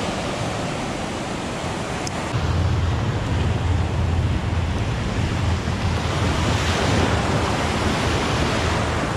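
Gulf surf breaking and washing up the beach, with a low rumble of wind on the microphone from about two seconds in.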